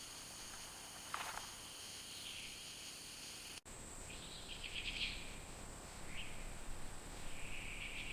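Rainforest ambience: a steady high insect drone with scattered bird calls. There is a short call about a second in, a rapid chirping trill midway, and a couple more calls near the end. The sound drops out for an instant about three and a half seconds in.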